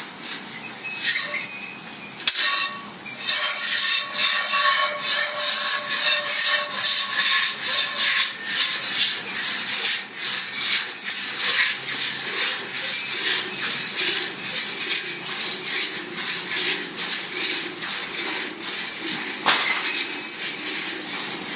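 Milk squirting from a cow's teats into a metal pail during full-hand milking, in quick, regular strokes, about two or three a second, over a steady high-pitched tone.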